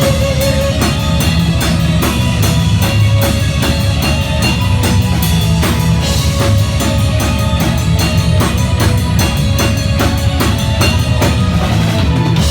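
Live rock band playing loud and fast: rapid, evenly spaced drum-kit hits with bass drum and snare over distorted guitar and bass. The pounding drums stop suddenly near the end, leaving the guitars ringing on.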